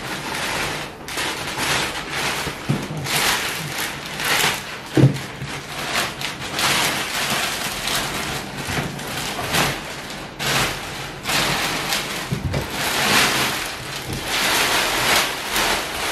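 Protective wrap rustling and crinkling in irregular swells as it is pulled off the back of a large flat-screen TV, with a couple of dull knocks about five seconds in.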